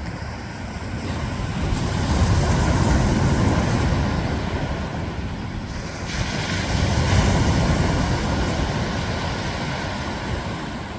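Ocean surf breaking on a beach: two waves swell and wash in, the first about two seconds in and the second about six seconds in, each fading back afterwards.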